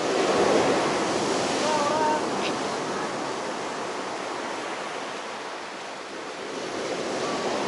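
Surf of a rough, stormy Black Sea: a wave breaking and washing up the shore, swelling just after the start and then slowly ebbing away.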